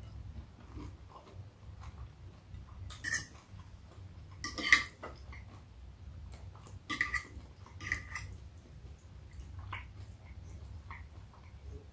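Close-miked eating sounds: quiet chewing, broken by a few sharp clicks and clinks of a fork against a plate or crunches of a bite, the loudest about five seconds in, over a low steady hum.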